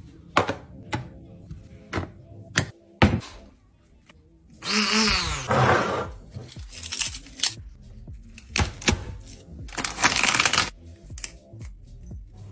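A handful of sharp clicks and knocks from kitchen utensils set down on a counter, then a handheld spice mill grinding in two bursts of a second or so, over background music.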